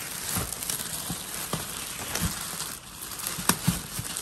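Clear plastic bag and paper wrapping crinkling and rustling as they are handled and pulled from a cardboard box, with two sharper crackles near the end.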